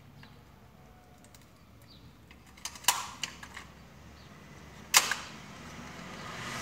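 Handheld price-labelling gun clicking as it is worked with a new label roll fitted: a quick cluster of plastic clicks about three seconds in, then one sharp click about five seconds in. The labels are not feeding properly.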